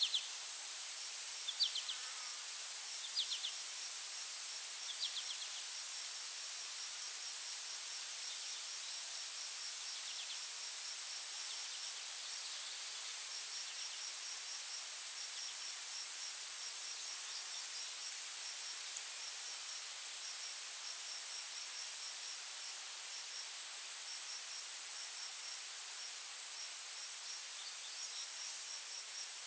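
Insect chorus: a steady high-pitched whine with a faster, regular pulsed chirping beneath it, and a few short bird chirps in the first five seconds or so.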